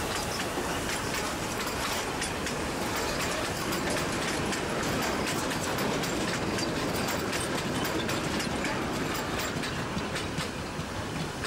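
Narrow-gauge steam train's carriages and open wagons rolling past close by, the wheels clicking over the rail joints in a steady clickety-clack that eases slightly as the last vehicle goes by near the end.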